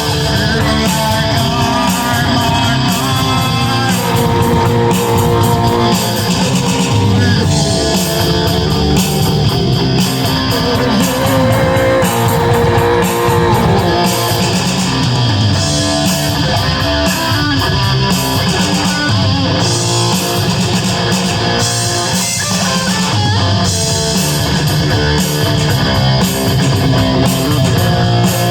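Electric guitar played through the Rez Distortion, a steady run of loud distorted notes and chords without a break.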